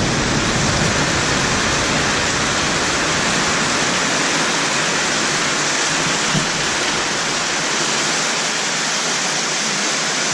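Heavy rain pouring down in a steady, even hiss, with no thunder.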